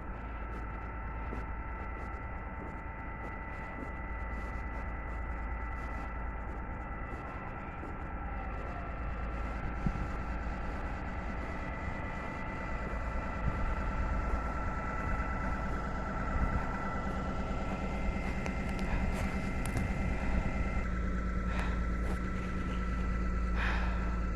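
Wind rumbling on the microphone in a snowstorm, with a steady high whine running under it and faint crunching steps through snow.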